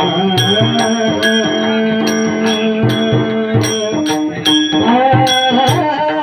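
Varkari kirtan music: small hand cymbals struck about twice a second over low drum beats and a held, wavering sung melody.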